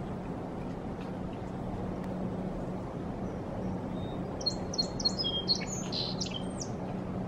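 An osprey gives a quick series of short, high, whistled chirps, about eight in two seconds, starting a little past halfway. A steady low hum and rush runs underneath.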